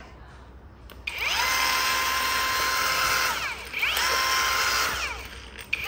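Cordless angle grinder switched on: its motor whine rises in pitch to a steady high whine, then winds down when the trigger is let go. It is run up and spun down a second time, and started again right at the end.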